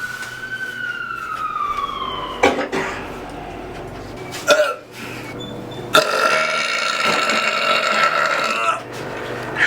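A man's long, loud deliberate burp, held for nearly three seconds about six seconds in. Earlier, a high tone glides up and back down in pitch, and a few sharp clicks sound.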